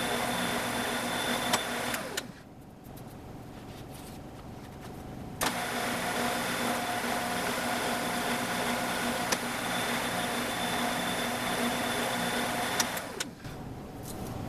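CNC router spindle running with a center drill while spotting holes in a UHMW plate: a steady motor whine that switches off and spins down about two seconds in, starts again suddenly about five seconds in, and spins down again near the end, with a few sharp clicks.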